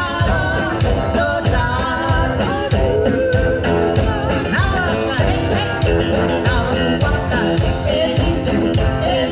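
Polynesian song: voices singing over a band with a steady beat.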